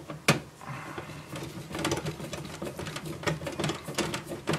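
A hand screwdriver turning a screw into the sheet-metal back panel of a CD player. There is one sharp click about a quarter second in, then a run of fast small ticks and scrapes as the screw is driven in.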